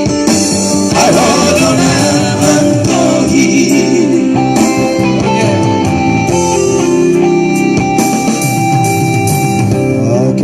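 Music: a vocal trio singing together over guitar accompaniment.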